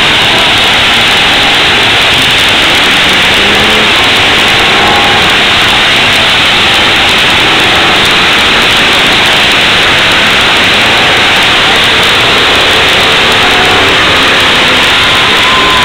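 Engines of many demolition-derby cars revving at once, a loud, unchanging wall of noise that overloads the microphone, with engine pitches rising and falling within it.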